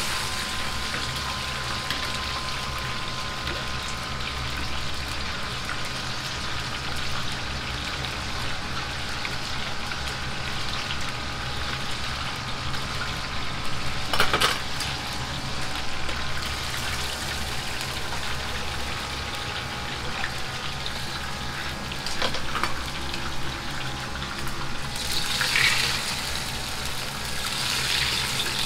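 Chicken deep-frying in a wok of hot oil: a steady sizzle over the rush of a gas wok burner. A metal ladle knocks and scrapes in the wok about halfway through and again a little later, and near the end there is louder splashing and sizzling as the chicken is lifted out of the oil into a strainer.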